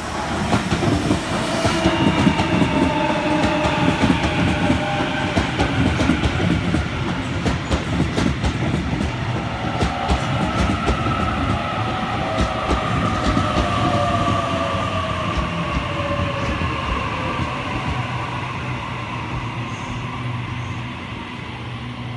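Sydney Trains Waratah (A set) double-deck electric train running close past while arriving at the platform: a heavy rumble with its wheels clattering over the rail joints. The whine of its traction motors falls in pitch as it slows.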